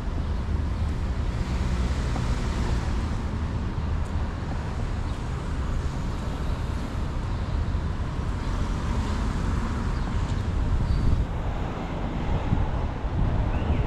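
City street ambience: steady traffic noise with a low, fluttering wind rumble on the microphone.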